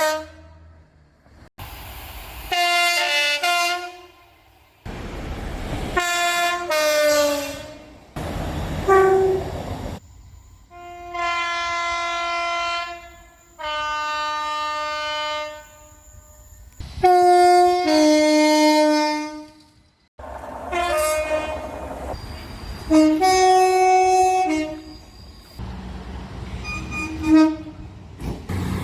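A string of train horns from British locomotives and multiple units sounding one after another, most of them two-tone blasts that step between a high note and a low note, some short and some held for a couple of seconds. The recordings change abruptly from one to the next, with train running rumble under some of them.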